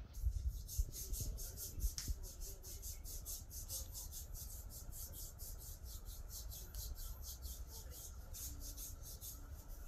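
Massage hand rubbing the skin on the back of a leg in quick, even strokes, about six a second. A few dull bumps come in the first two seconds.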